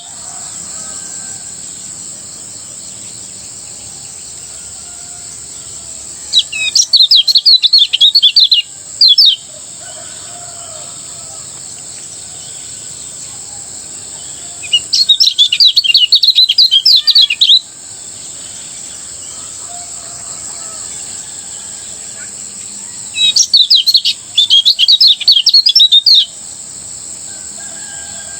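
Kecial kuning, a Lombok white-eye, singing in fast chattering bursts: three loud outbursts of rapid, high twittering notes, each about three seconds long, coming about eight seconds apart. A steady high hiss runs underneath.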